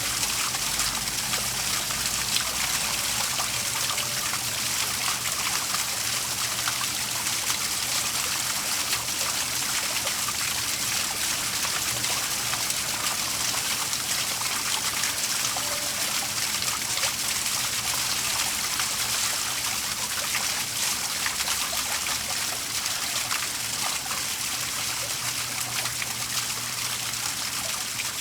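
Water from a small waterfall splashing and trickling steadily. A faint low hum sits beneath it.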